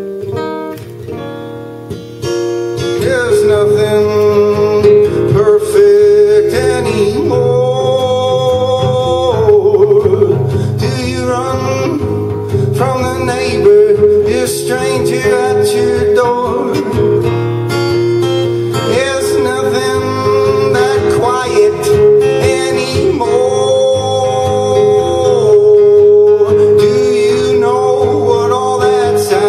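A man singing to his own strummed acoustic guitar. The guitar plays alone at first, and the voice comes in about three seconds in with long held notes.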